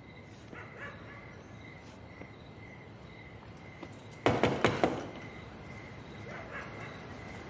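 A quick run of about five loud knocks on a door, about four seconds in, over faint steady cricket chirping.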